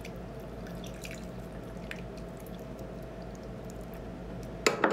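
Faint wet drips and squelches from liquid food handling over a steady low hum. A brief voice-like sound near the end is the loudest thing.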